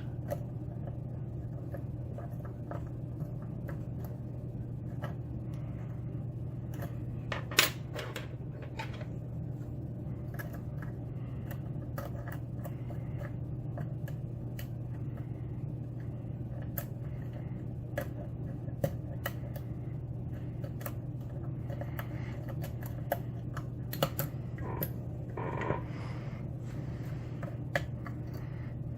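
Lock pick and tension wrench working the pins inside a challenge lock: scattered small clicks and scrapes, with a sharper click a little over seven seconds in, over a steady low hum.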